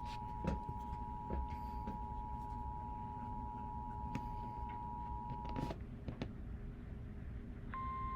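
Emergency Alert System two-tone attention signal, a steady dual tone that cuts off a little under six seconds in. Just under two seconds later a single, slightly higher steady tone starts: the weather radio warning alarm tone that announces the next warning. Scattered faint clicks run underneath.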